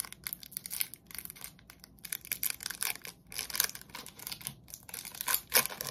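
A trading card pack's wrapper being torn open, crinkling and crackling in irregular bursts.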